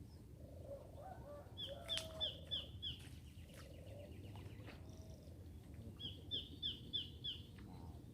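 A bird calling outdoors: two runs of five or six short, high, falling notes in quick succession, a few seconds apart, over faint steady background noise.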